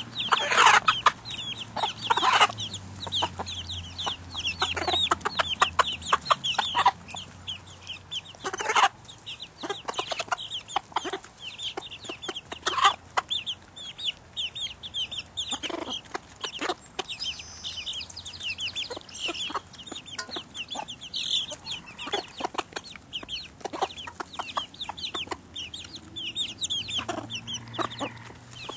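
A flock of hens clucking while chicks peep in many short, high cheeps.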